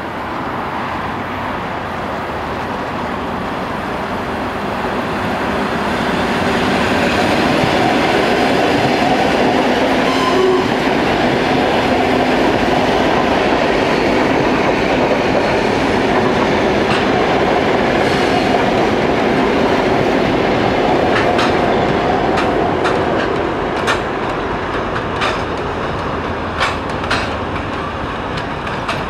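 Trains passing: an ER2T electric multiple unit and TEP70 and 2TE116 diesel locomotives, making a steady, loud rumble that swells a few seconds in. Near the end, wheels clack sharply over rail joints about eight times.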